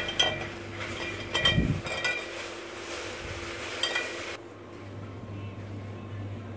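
Light clinks of glass, a scattered series over the first four seconds, each with a short ring. After that the clinking stops and a low steady hum remains.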